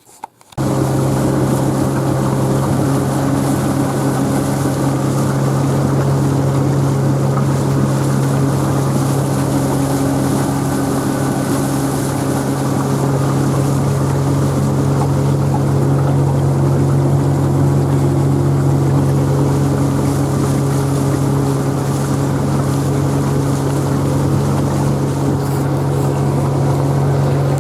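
Boat motor running at a steady speed, a constant drone that starts about half a second in.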